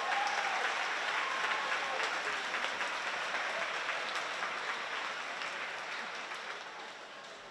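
Audience applauding, the clapping fading away toward the end.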